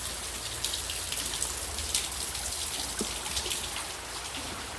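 Steady rain falling, with many small drops pattering on surfaces.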